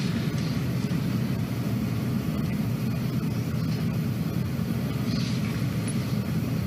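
Steady low hum with a faint hiss: the background room tone of an old television studio recording, with no distinct events.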